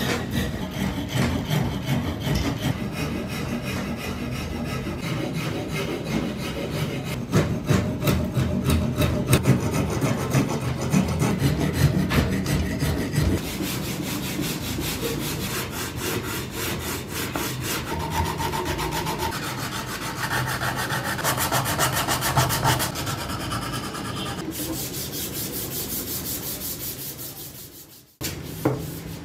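A wood rasp scraping along the edges of a wooden hammer handle in repeated strokes, then sandpaper rubbed by hand back and forth along the handle from about halfway through.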